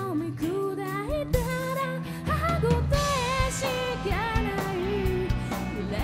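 Live rock band playing: a woman's lead voice singing a wavering melody over electric guitar, bass guitar and drums.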